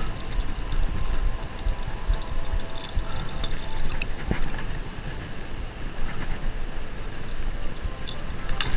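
Wind buffeting the microphone over moving water, with a few small sharp metallic clicks as pliers work a treble hook out of a bluefish's mouth.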